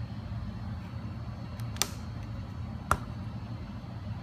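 A steady low hum, with two sharp clicks about a second apart near the middle.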